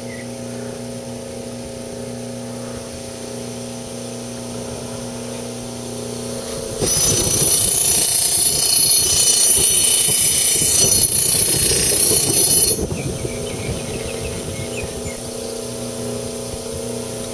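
Bench buffer's motor humming steadily with a cloth buffing wheel spinning. From about 7 s to nearly 13 s a kitchen knife blade is pressed against the wheel to polish it with compound, giving a loud hissing whir over the hum that stops when the pressure comes off.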